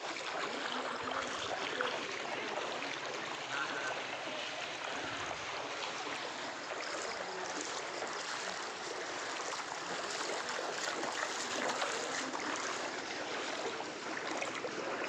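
Floodwater flowing steadily, an even, unbroken sound of running water.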